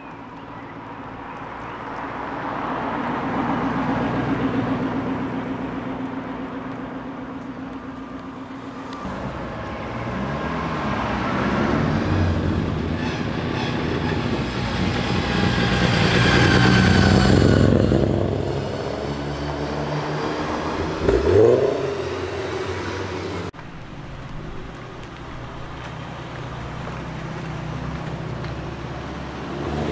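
Cars driving off one after another. First a Ford GT's V8 pulls away at low revs with a steady note, then further cars accelerate past with rising engine notes, loudest about two-thirds of the way through. A quick rising rev follows, then after a sudden cut a quieter engine runs at low speed.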